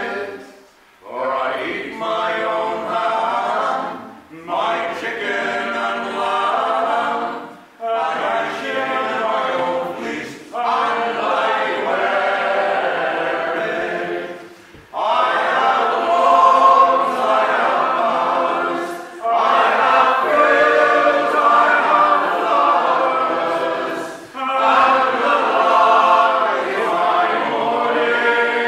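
Several men's voices singing a folk song a cappella, in phrases with short breaks for breath; the singing gets louder from about fifteen seconds in.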